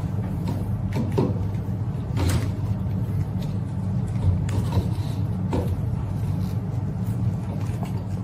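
Scattered light clicks and taps of wooden chopsticks against plastic cups as coins are fished out of the liquids, over a steady low hum.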